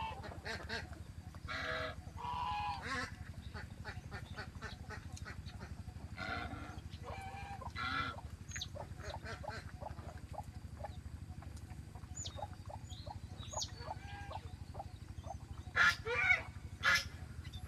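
Farmyard geese honking repeatedly, with other poultry calling among them; the loudest honks come near the end.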